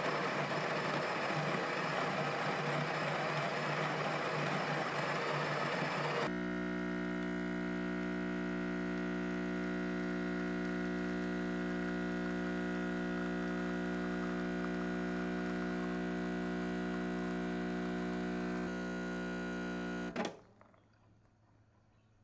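Breville espresso machine: its built-in burr grinder grinds coffee beans for about six seconds. Then the vibratory pump buzzes steadily while an espresso shot extracts. The pump stops with a click about twenty seconds in.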